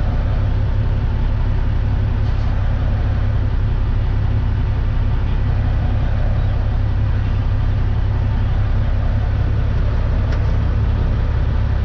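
Loaded dump truck's diesel engine running, heard from inside the cab as a steady low drone, with two brief hisses, about two seconds in and near the end.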